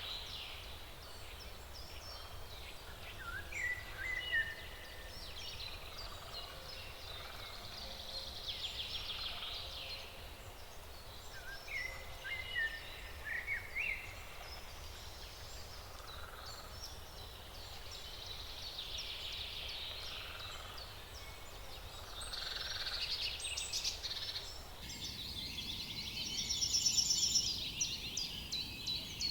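Several songbirds singing in overlapping phrases of chirps and quick trills, over a steady low rumble. The background noise changes abruptly about 25 seconds in, and there is a denser burst of song near the end.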